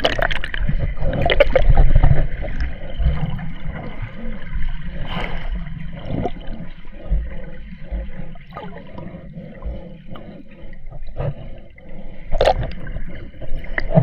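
Sea water gurgling and sloshing right at the microphone, with a heavy low rumble, as the camera goes down into the water while snorkeling. A couple of short splashes come near the end.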